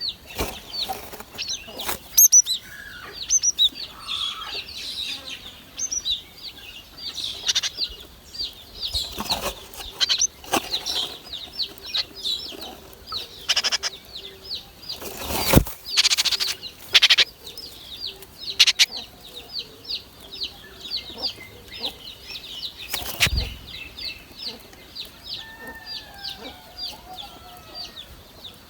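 Nestlings begging: a continuous run of short, high chirps, about four a second, with scattered sharp thumps and rustles from wings or movement. Near the end a separate bird call falls in pitch.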